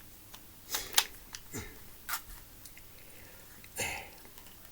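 A few sharp clicks and short scrapes of a BB pistol and its slide being handled, the loudest click about a second in.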